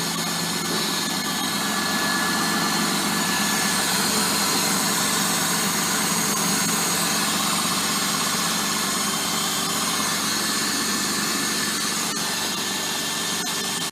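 Holden Commodore engine idling steadily, run after its water pump, hoses and drive belt were replaced.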